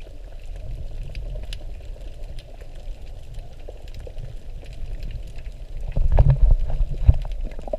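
Water sloshing and bubbling, a steady low churn with faint crackles that grows louder about six seconds in.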